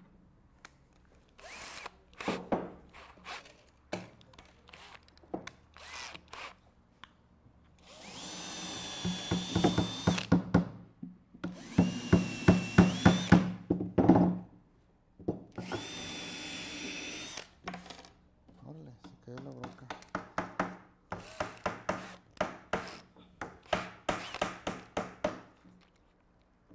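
Cordless drill boring pilot holes into a wooden board in three runs of a few seconds each, the motor whine steady and rising just before the second run stops. Around the drill, a hammer drives angled nails into wood (toe-nailing) with sharp blows, coming thick and fast through the last third.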